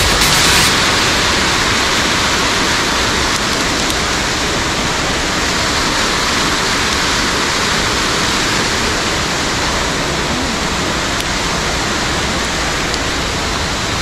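Loud, steady rush of white water from a rain-swollen mountain stream in flood, pouring through a waterfall.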